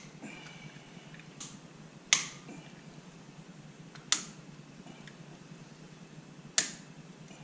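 Seized hub screws on a 1994 Ford F150's front wheel hub cracking loose under a hand wrench: three sharp metallic snaps about two seconds apart, with a fainter one just before them.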